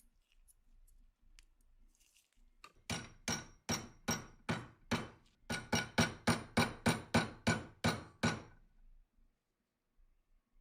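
A hammer tapping repeatedly on a metal part of a Colt M1911 pistol during its restoration, each strike ringing briefly. About six steady blows are followed by a short pause and then a quicker run of about a dozen.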